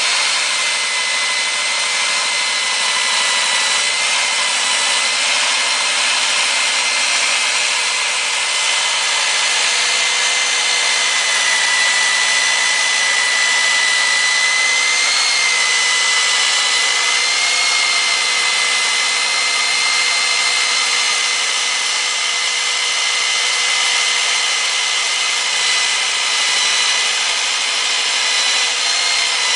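Kor-It K804 hand-held electric core drill, its 1500-watt motor running steadily under load: a high, held whine over a continuous grinding noise.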